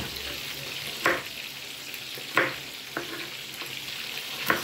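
A kitchen knife chopping carrot on a wooden cutting board, about four sharp knocks spaced roughly a second apart, over the steady sizzle of fish frying in oil.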